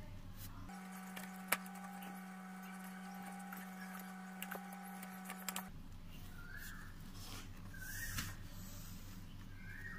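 Light clicks and knocks of metal parts being handled as a scooter's brake drum assembly is seated into an alloy front wheel hub, the sharpest click about a second and a half in. A steady hum starts about a second in and stops abruptly about halfway through.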